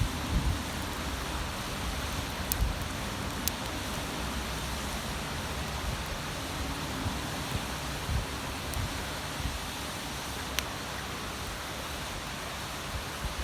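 Wood bonfire burning: a steady hiss with a few sharp crackles, about four in all.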